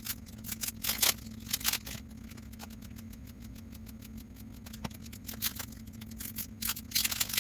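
Crinkling of wax-paper card pack wrappers and baseball cards being handled, with a run of sharp crackles in the first two seconds and again near the end, over a steady low hum.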